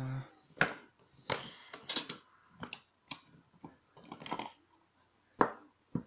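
Small hard clicks and knocks of a brass euro cylinder lock and a bench vise being handled, as the lock is released from the vise jaws and set down. The knocks come singly at uneven intervals, with the sharpest about half a second in and another near the end.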